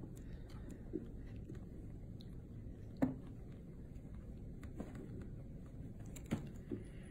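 Kittens play-fighting in a small plastic toy wrestling ring: soft scuffling with a few short knocks and thumps as they hit the ring and its mat, the sharpest about three seconds in.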